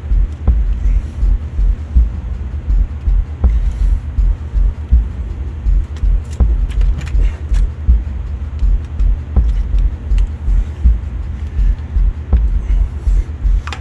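A loud low rumble that pulses in a steady rhythm, a little over once a second, with scattered sharp clicks of hand tools on metal. The clicks come in a cluster about halfway through.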